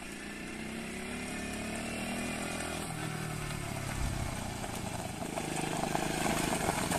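50cc quad bike's small engine running as the quad approaches, getting steadily louder, its pitch rising and falling a little with the throttle.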